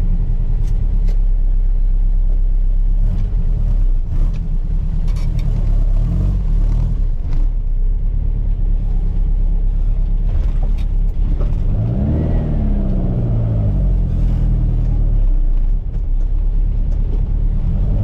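1968 VW Baja Bug's air-cooled flat-four engine running under way, its revs climbing and dropping a few times as the car is driven through the gears.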